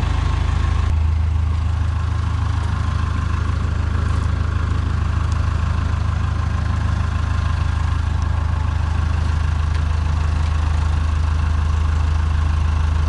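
Rough-terrain forklift's engine idling steadily with a deep hum; its tone shifts slightly about a second in.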